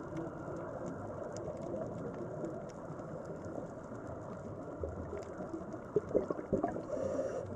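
Underwater ambience on a coral reef: a steady, muffled low rush of water with faint scattered clicks, and a few dull knocks about six seconds in.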